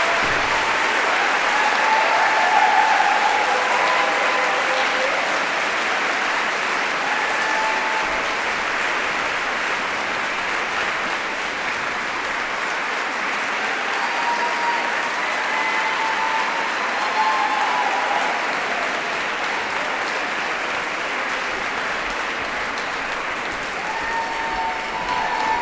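Audience applauding steadily after a chorus performance, with a few short calls and cheers from the crowd over the clapping.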